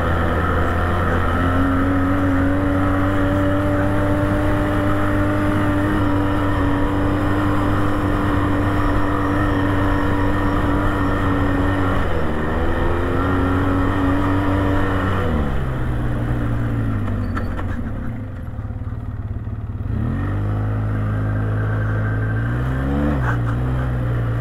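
ATV engine pulling at a steady pitch while riding, with a brief dip about twelve seconds in. About fifteen seconds in the revs fall away to a low drone. Near the end the engine revs up again, rising and falling a couple of times.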